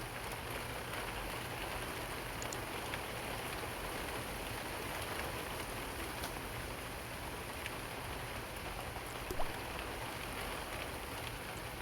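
Steady rain falling on forest leaves, an even hiss with scattered single drops ticking, and one louder drop about nine seconds in.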